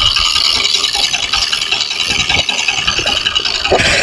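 Small fishing boat's inboard diesel engine running with a loud, steady rattle and clatter.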